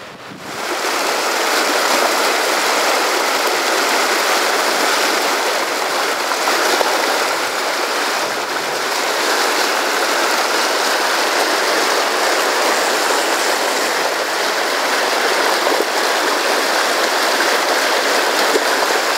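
Mountain river rapids rushing over rocks in whitewater pocket water: a steady, loud rush of water that swells up within the first second and then holds.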